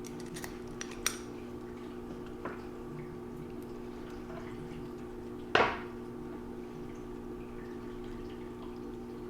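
Faint metallic clicks from the new valve core and recore tool parts being handled and fitted, with one louder clunk about five and a half seconds in, over a steady low hum.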